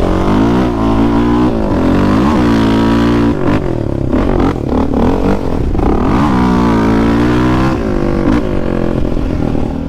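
ATV engine revving up and down repeatedly, its pitch rising and falling again and again.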